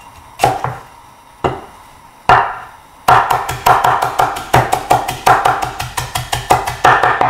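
Chinese cleaver chopping scallion on a wooden cutting board: three separate cuts, then fast, even mincing from about three seconds in, around five strokes a second.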